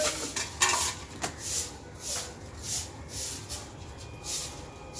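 A broom sweeping a cemented floor: short scratchy swishes, about two strokes a second, with a couple of light knocks in the first second or so.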